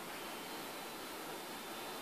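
Faint steady hiss of room noise, with a very faint thin high tone joining about half a second in.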